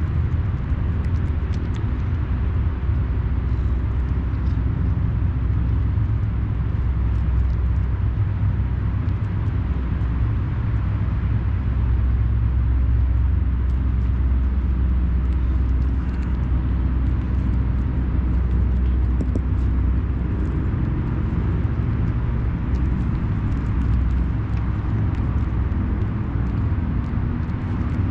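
Steady low rumble of distant road traffic, with faint small clicks of a cat crunching dry kibble.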